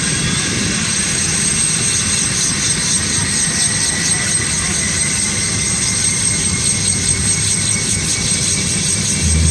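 Sikorsky UH-60 Black Hawk helicopter running on the ground with its rotors turning. A steady high-pitched turbine whine sits over the dense noise of the rotors and engines.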